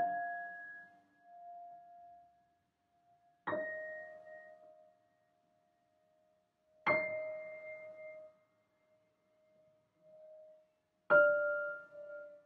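Solo piano playing slow, sparse chords: four struck in turn, about three and a half seconds apart, each left to ring and fade.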